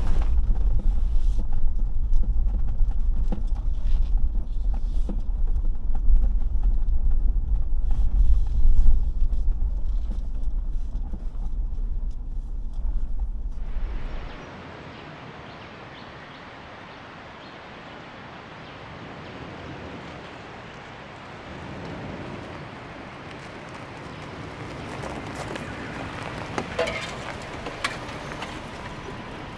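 Four-wheel-drive vehicle driving on a rough dirt track: a heavy low rumble of engine and road noise. About halfway through it drops off suddenly to a quieter, steady rushing noise, with a few short knocks near the end.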